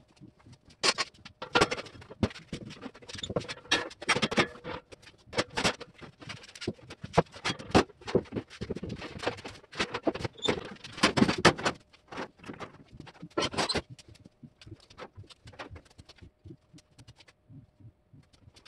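A curved sheet-steel hood panel being handled and set onto a car body: irregular taps, scrapes and clatter of metal, busy for the first dozen seconds or so and then sparser.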